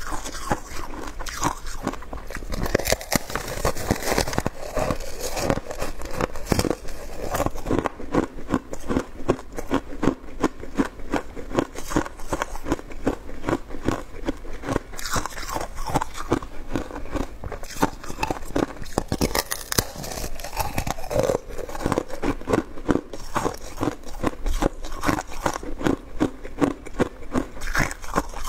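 Shaved ice being bitten and chewed: many quick, crisp crunches and crackles of the frozen ice, one after another.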